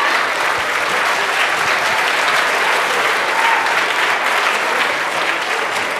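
A large audience in a lecture theatre applauding, a dense steady clapping.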